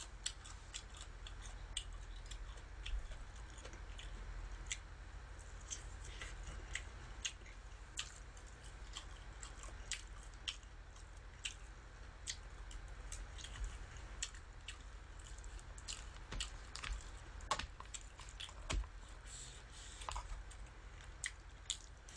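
Close-up eating sounds: chewing mouthfuls of raw spinach salad and pan-fried pork meatball patties, with many short, irregular wet clicks and smacks.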